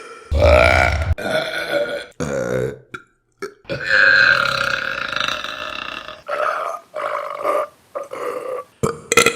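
Women burping loudly, one burp after another, about seven in all with sharp cuts between them. One long drawn-out burp comes about four seconds in.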